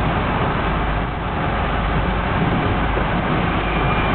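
Van engine and road noise heard from inside the cab as the van pulls out onto a street: a steady rumble with hiss over it.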